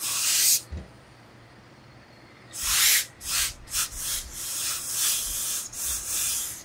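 A hose-fed industrial steam iron hisses as it presses wool suit trousers. There is a short burst at the start, a pause of about two seconds, then repeated hissing from about two and a half seconds in, running into a longer stretch.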